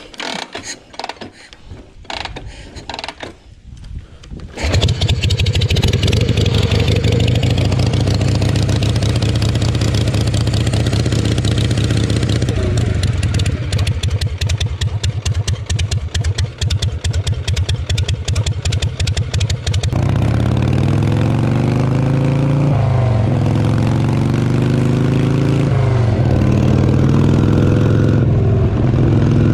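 Harley-Davidson Shovelhead V-twin: a few knocks, then the engine fires about four and a half seconds in and idles loudly. From about twenty seconds in the bike pulls away, its pitch rising in each gear and dipping at each of three upshifts.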